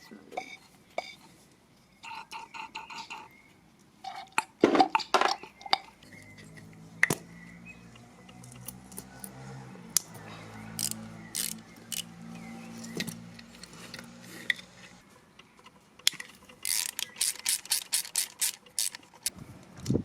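Metal parts and tools clinking, rattling and knocking, with a dense run of sharp clicks near the end. A steady low hum runs through the middle for about nine seconds.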